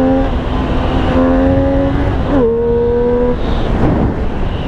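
Triumph Street Triple 765 S inline three-cylinder engine pulling at wide-open throttle high in the revs, with one quick upshift about two and a half seconds in. At full throttle its intake sound comes from the front of the bike.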